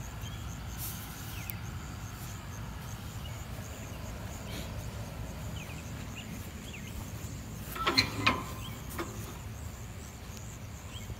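Steady evening outdoor ambience with insects chirring high and a low rumble, and a brief cluster of sharp clicks about eight seconds in.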